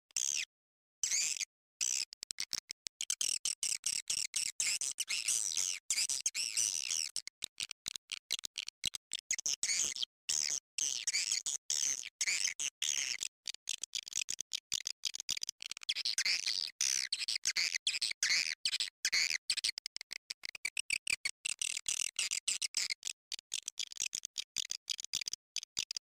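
Recorded swiftlet call track of the kind played to lure edible-nest swiftlets into a nesting house: dense, high twittering chirps, cut by many abrupt, very short dropouts.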